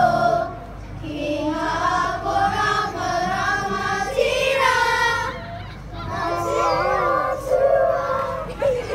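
Children's kapa haka group singing a waiata together, in sung phrases with brief breaths between them.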